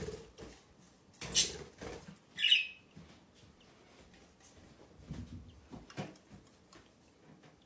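Pet budgies calling: one short, sharp, high call about two and a half seconds in, with a soft rustle just before it and a few faint clicks later.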